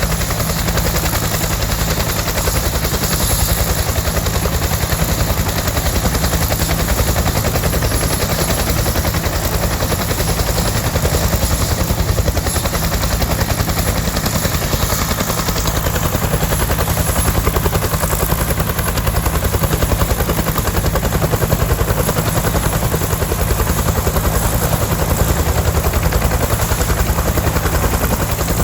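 Bell UH-1D Huey helicopter running, its two-bladed main rotor beating in a steady, fast rhythm over the drone of its turboshaft engine.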